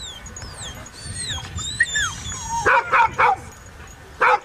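A dog barking: three short barks in quick succession a little past halfway, then one more near the end.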